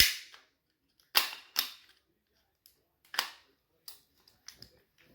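Sharp metallic clacks of AR-15 rifle parts being handled and fitted together during reassembly. The loudest comes at the start, two more follow about a second in, another near three seconds, then a few lighter ticks.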